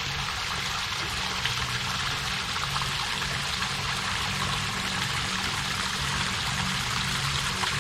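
Waterfall: falling water in a steady, even rush.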